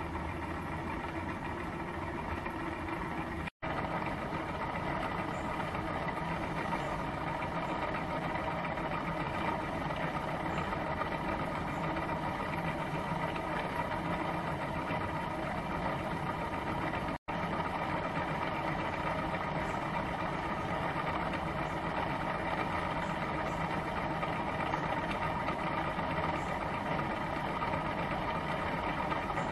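Homemade gamma-type Stirling engine running steadily: a continuous mechanical whirr from its pistons, linkage and brass flywheel. The sound drops out twice for an instant.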